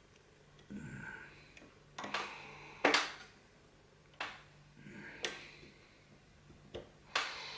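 Metal pick and tension tool working the levers of a four-lever padlock: scattered, irregular clicks and scrapes, the sharpest click about three seconds in.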